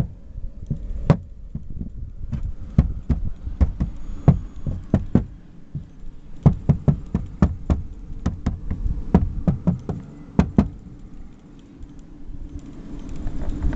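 Datsun on-DO interior plastic trim creaking and knocking: many sharp, irregular clicks over a low steady rumble, hollow like a drum. It is the sign of loose, poorly fitted cabin plastic.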